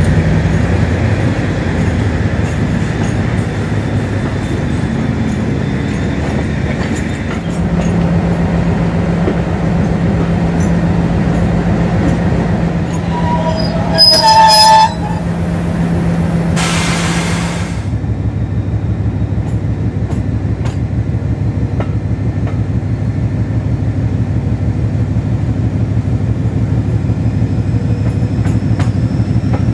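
Class 56 locomotive's 16-cylinder Ruston Paxman diesel engine working under load with a steady low note. About halfway there is a short horn blast, then a second-long burst of hiss. After that the engine drops to a lower pulsing note, and a faint rising whine comes in near the end.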